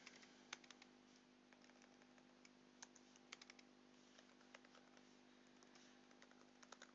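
Faint, scattered keystrokes on a computer keyboard as text is typed, over a faint steady hum.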